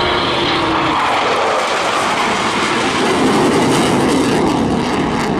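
RAF Typhoon FGR4's twin EJ200 turbofans in afterburner: a loud, steady jet roar that deepens and swells a little past halfway.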